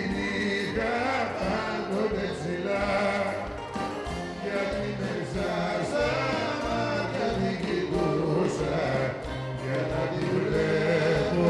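Two men singing a Greek song into microphones, amplified live, with a bouzouki and band accompanying.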